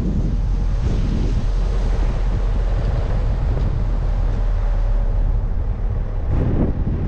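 Car driving in rain: a steady low rumble of road and engine noise, with wind buffeting the microphone. A brief louder rush of noise comes about six and a half seconds in.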